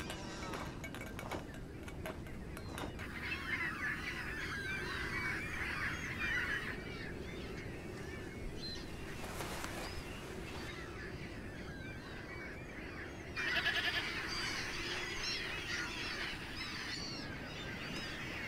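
A flock of birds calling, the chatter swelling in two waves, about three seconds in and again from about thirteen seconds, over a steady low rumble of wind.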